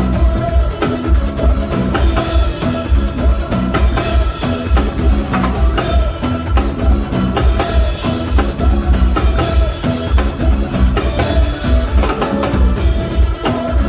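Live band playing an instrumental groove with drum kit and a heavy bass line on a steady beat.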